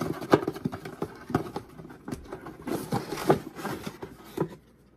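Paper and cardboard packaging being handled: a run of rustles, scrapes and light knocks that stop about four and a half seconds in.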